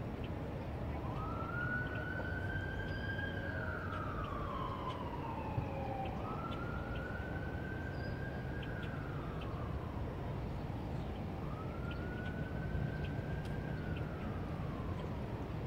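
A wailing siren. Each wail rises, holds briefly, then falls, about every five seconds, over a steady low rumble.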